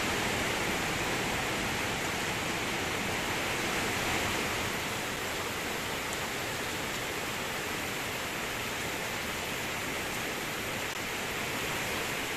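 Heavy rain falling steadily as a dense, even hiss, a little louder in the first few seconds.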